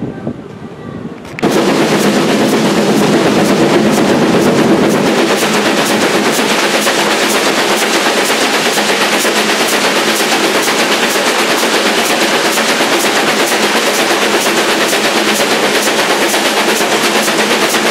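Steam locomotive working hard, a fast, even run of exhaust beats heard from an open window of a carriage behind it, with a rush of wind and running noise. It starts suddenly about a second and a half in, after a quieter opening.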